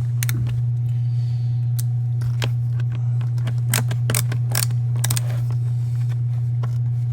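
Scattered sharp clicks and short clatters of a tool and small parts being handled while the screws are worked out of the roller bag's frame by hand. A steady low hum runs under them.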